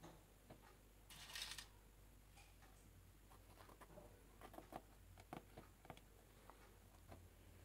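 Near silence, with faint handling noise: a brief rustle about a second in and a few small clicks as toothpicks are pushed through a stuffed green bell pepper to pin its cap.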